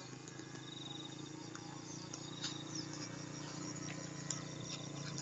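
Faint, steady low drone of a small model glow engine (AP Hornet .15) throttled back, growing slightly louder, with insects trilling in short runs.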